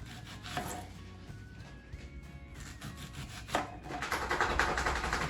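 Kitchen knife slicing an onion on a cutting board: a couple of single cuts, then a quick run of strokes near the end. Soft background music plays throughout.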